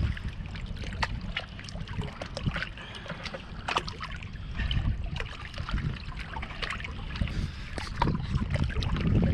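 Water lapping and splashing at shoreline rocks, with small splashes from a striped bass held by the tail in the shallows as it is revived before release. A steady low wind rumble on the microphone runs underneath.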